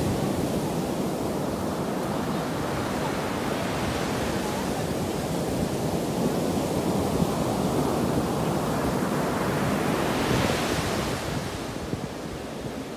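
Ocean surf breaking on a sandy beach: a continuous wash of waves, with one wave crashing louder about ten seconds in before the wash eases.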